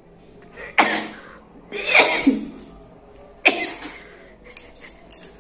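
A person sneezing three times in quick succession, each one a sudden, loud burst of breath.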